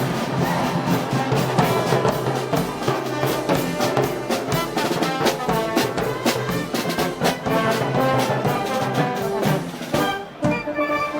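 Spanish festival brass band music of the Moros y Cristianos kind: trumpets and trombones over a steady drumbeat, with a brief drop in level about ten seconds in.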